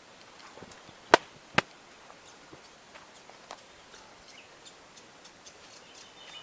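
Two sharp cracks about half a second apart, then faint scattered ticks and rustles: dry twigs and branches snapping as someone pushes on foot through dense brush.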